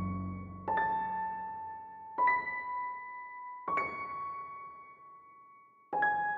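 Slow piano music: single high notes struck about one and a half seconds apart, each left to ring and fade.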